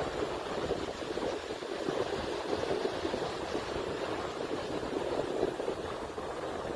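Steady rushing noise of strong wind and surf on an open beach, with the wind buffeting the microphone.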